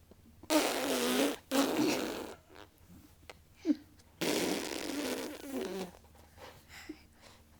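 A person blowing raspberries, buzzing the lips to make fart-like noises: two short ones close together in the first couple of seconds, then a longer one about four seconds in.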